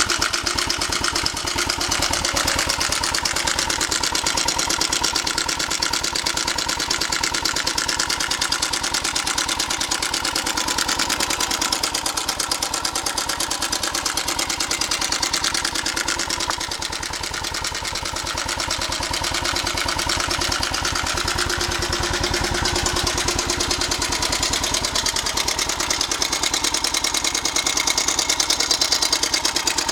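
Suzuki Savage 650's single-cylinder four-stroke engine idling with a fast, even clatter from a loose cam chain; the cam chain tensioner has failed and come out of its body.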